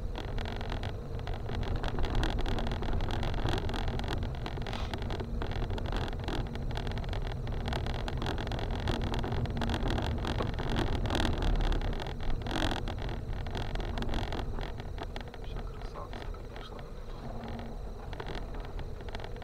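A car driving over a rough, broken unpaved road, heard from inside the cabin: steady engine and tyre rumble with scattered knocks and rattles from the body and suspension over the bumps.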